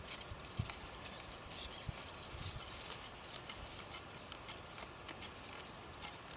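Faint outdoor ambience of scattered light ticks and rustles, with small high chirps in the background.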